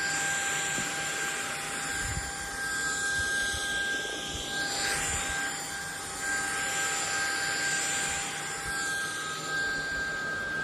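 Ultenic U18 Pro cordless stick vacuum running on carpet: a steady high motor whine over an airflow hiss that swells and fades every couple of seconds as the head is pushed back and forth.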